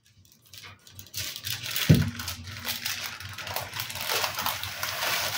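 Baking parchment rustling and crinkling as a flammekueche on its sheet is slid onto a wire oven rack, with light clinks from the metal rack.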